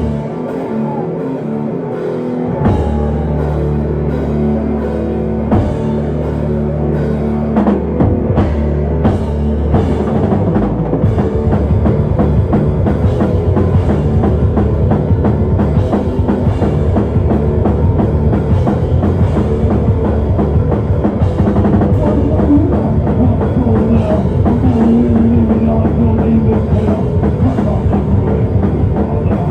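Live rock band playing loud: held low chords ring out for the first several seconds, then the drum kit comes in at about eight seconds and the whole band drives on at a fast, dense pace.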